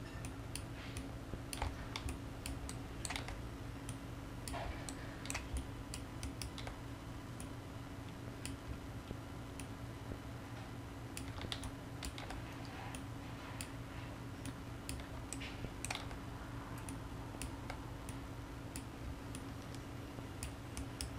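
Scattered, irregular clicks of a computer mouse and keyboard being worked at a desk, over a steady low hum.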